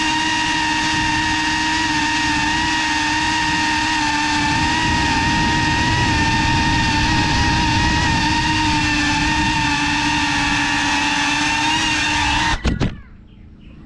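GEPRC FPV quadcopter's motors and propellers whining at a steady pitch, with wind rush, heard from the GoPro mounted on the drone. Near the end the motor sound cuts off suddenly after a couple of knocks as the drone comes down, leaving only quiet background.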